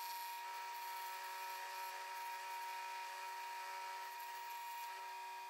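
Scroll saw running and cutting through plywood: a steady machine hum made of several held tones, with no change in speed.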